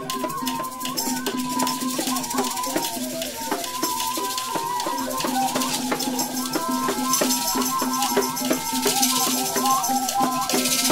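Freely improvised group sound with no beat: a steady low drone, wavering high-pitched tones that slide up and down, and a shaken rattle that swells about a second in and again near the end.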